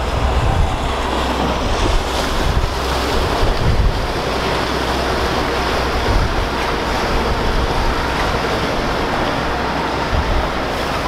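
Wind rumbling on the microphone over choppy canal water sloshing and lapping below.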